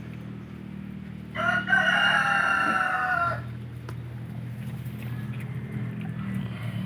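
A rooster crows once, a single call of about two seconds, over a steady low hum.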